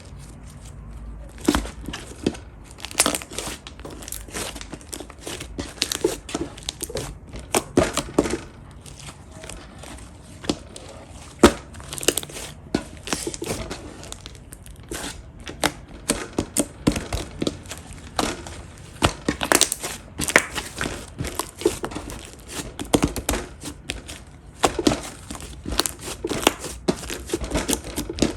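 Slime being squished, pressed and stretched by hand, giving a dense run of irregular sticky clicks and pops.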